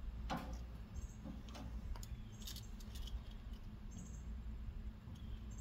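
Metal grill tongs clicking and clinking against the wire warming rack of a barrel grill as smoked sausages are turned: a series of irregular sharp clicks over a low steady rumble.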